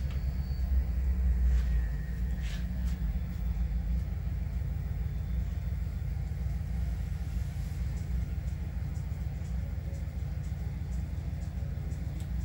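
Digital sound decoders of N-scale SD40-2 diesel locomotives, played through an added low-frequency speaker system, giving a deep, steady engine rumble under the heavy load of a coal train climbing a grade. The rumble swells for a second or so near the start, and a few faint clicks sound over it.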